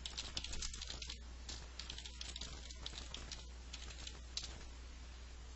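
Faint keystrokes on a computer keyboard: an irregular run of quick clicks as a short command is typed, dying away about four and a half seconds in.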